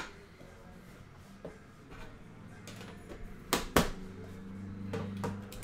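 Metal trading-card tin being handled, with two sharp clicks close together about three and a half seconds in as its lid is knocked and set back on, and a few lighter taps around them. A low steady hum comes in near the end.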